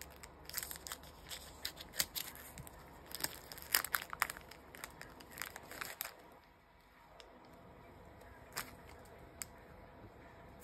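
Foil Pokémon card booster pack being cut open with scissors and crinkled as the cards are pulled out: a run of short, sharp crackles and rustles over the first six seconds or so, then only a few faint ticks as the cards are handled.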